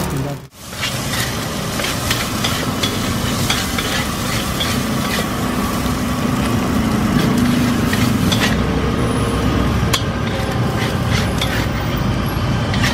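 Fried rice sizzling in an iron wok as a metal spatula clinks and scrapes against it, many short sharp clicks over a steady frying hiss. A steady low rumble of road traffic runs underneath.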